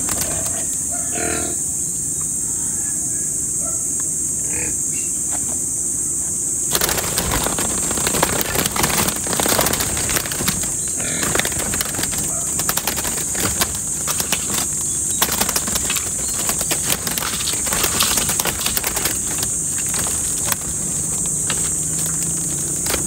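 A dove flapping its wings and clattering against its cage as it is grabbed by hand, a dense flurry of beats and knocks starting about seven seconds in. A steady high chirring of crickets runs underneath.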